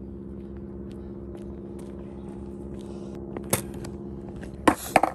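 A steady low hum made of several even tones runs throughout, with faint footsteps on asphalt. About three and a half seconds in, and twice near the end, come loud sharp knocks and rustling: handling noise as the phone is picked up off the road.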